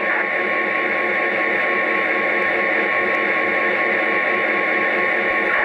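O gauge model EMD GP30 diesel locomotive's onboard sound system playing a steady diesel engine sound.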